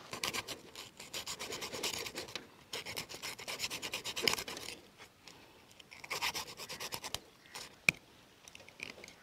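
A knife scraping the scales off a large fish: rapid rasping strokes in runs of a second or two, with short pauses between, and one sharp tick near the end.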